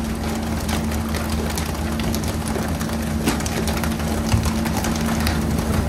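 Pole-and-line tuna boat's engine running steadily with a constant hum, under the hiss of water spray and sea. Frequent sharp knocks and slaps come from the deck as the crew haul tuna aboard.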